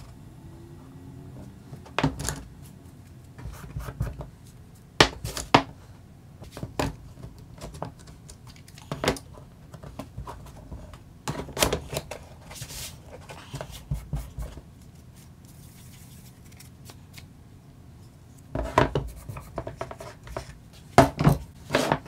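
Bench-work handling sounds: wooden blocks knocked and slid on a wooden workbench, and an Irwin one-handed bar clamp clicking as it is squeezed tight on the glued blocks. Scattered sharp clicks and knocks, some in quick clusters.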